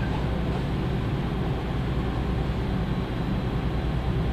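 Steady low hum and rumble inside a JR 311 series electric train, heard through the carriage.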